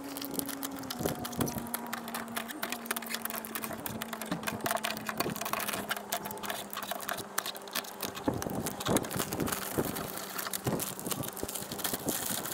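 Thin plastic door vapour barrier being peeled off its sticky butyl sealant bead, crinkling and crackling in dense, irregular clicks, over a faint steady hum.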